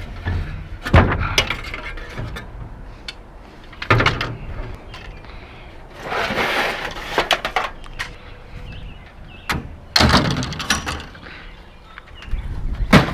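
Scrap metal being handled and loaded: scattered clanks and knocks, with a longer scraping drag about six seconds in and a loud clank near the end.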